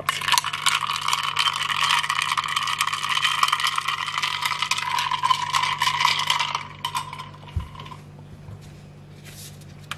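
Ice cubes clinking and rattling fast against a glass mason jar as an iced coffee is stirred. The stirring stops about two-thirds of the way through.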